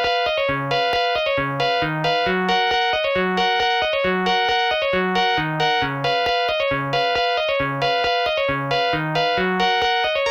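Polyphonic mobile phone ringtone from the Samsung SGH-T300, a synthesized melody of short, sharply struck notes and chords over a bass line, going in a steady rhythm.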